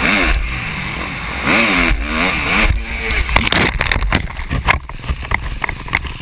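Motocross bike engine revving up and down with wind rushing over the camera. About three seconds in the engine note drops away and a series of knocks and thumps follows, the camera tumbling into the dirt.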